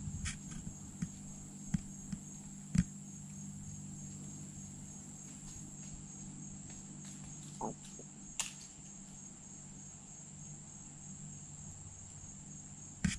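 Steady high-pitched chorus of insects such as crickets, with a few short sharp clicks and snaps scattered through it, the loudest about three seconds in.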